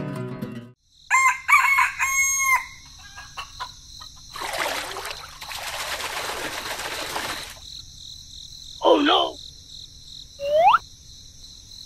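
A rooster crows about a second in. A few seconds of rushing noise follow, then a short call and a quick rising whistle near the end, over a faint steady high hiss.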